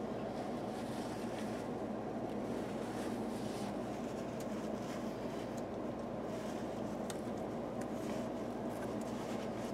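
Steady background hum, with a few faint light knocks and scrapes as a Dodge 440 V8's cast-iron cylinder head is wiped with a rag and tipped over on its side.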